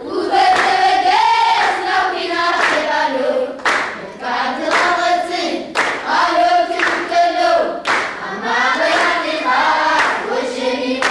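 A group of voices singing together, with handclaps cutting through the song.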